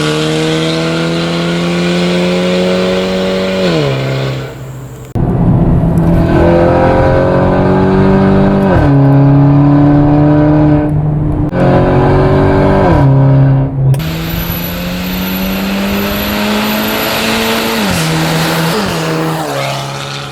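Mercedes A250 (W177) turbocharged 2.0-litre four-cylinder with an aftermarket downpipe, accelerating hard through the gears. The engine pitch climbs, then drops sharply at each upshift, about six times, with a fart-like exhaust burp on the shifts.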